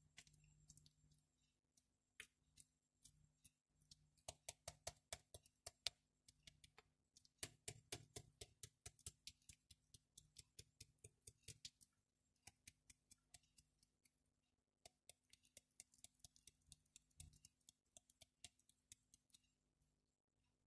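Fine aquarium substrate grains dropping into an empty glass tank, ticking and clicking on the glass, faint, in irregular quick runs of several clicks a second.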